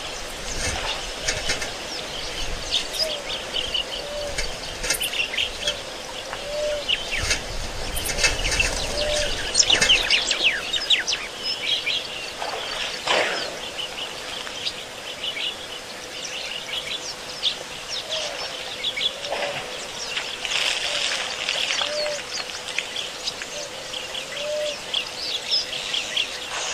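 Many birds chirping and calling throughout, with a lower, short, arching call repeated every few seconds. A low rumbling noise swells about a third of the way in.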